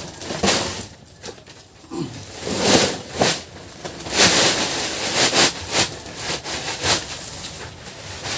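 Sawdust being poured and shaken out of a sack in a series of hissing, rustling bursts.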